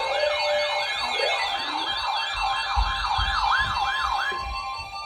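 Electronic siren tones layered together: a fast yelping siren of rising sweeps, about two and a half a second, over a warbling high tone and steady alarm tones. The yelp stops about four seconds in and the rest fades out.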